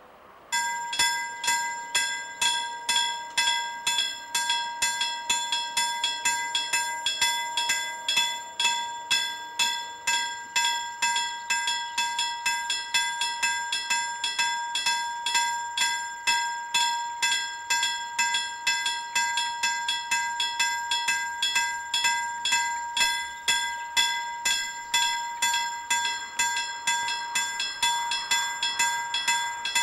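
Level-crossing warning bell ringing rapidly, about three strikes a second with a clear steady ring, starting suddenly about half a second in as the crossing activates for an approaching train.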